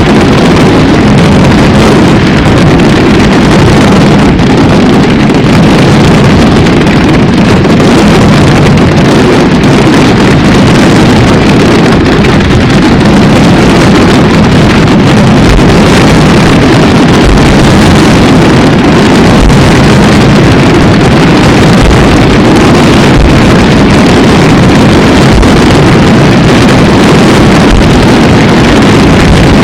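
A dense, continuous barrage of fireworks, the bursts overlapping into one steady, distorted roar that overloads the microphone.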